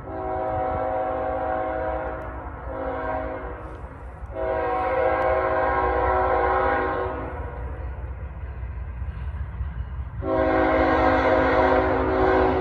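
A CN GE Tier 4 GEVO diesel locomotive sounding its air horn as it approaches, in four blasts: a long one, a short one about two and a half seconds in, another long one from about four to seven seconds, and a long blast starting about ten seconds in. A steady low rumble runs underneath.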